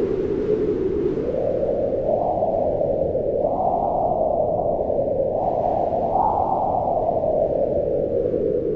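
Wind howling, a low moaning rush whose pitch swells up and falls back in slow waves every few seconds.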